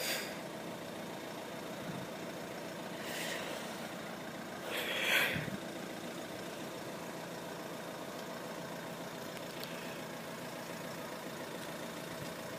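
Steady low hum of road vehicles idling at the closed crossing, with two brief louder hissing swells about three and five seconds in.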